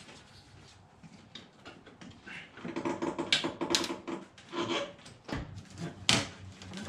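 Handling noise from working a stuck rubber coolant hose off the radiator: faint rubbing at first, then a run of rapid squeaks mixed with sharp clicks from about three seconds in, and a sharp knock near the end.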